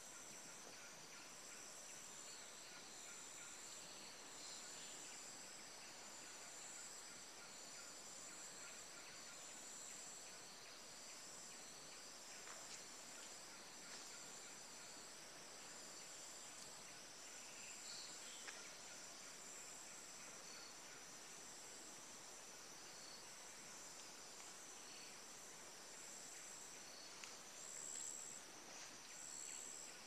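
Faint, steady chorus of insects with high-pitched pulsing trills, under a few soft handling clicks.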